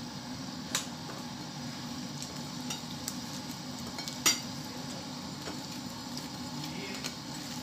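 Raw shrimp being tossed by hand in cornstarch on a ceramic plate, with a few sharp clicks against the plate, the loudest about four seconds in, over a steady background hiss.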